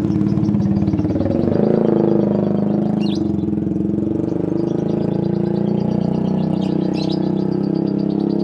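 An engine running steadily, with a fast, even pulse, and a few brief high bird chirps about three and seven seconds in.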